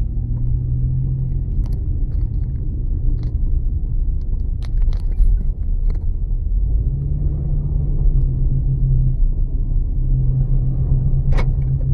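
A car driving, heard from inside: a continuous low road-and-engine rumble, with a steady low drone that fades and returns. There are a few small clicks and ticks, the sharpest near the end.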